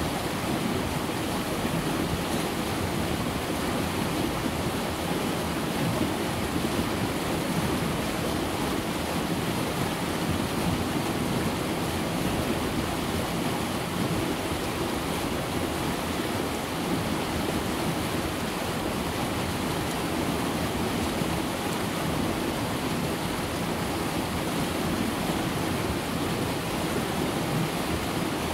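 The River Conwy rushing through rocky rapids in a narrow gorge: a steady, unbroken roar of whitewater.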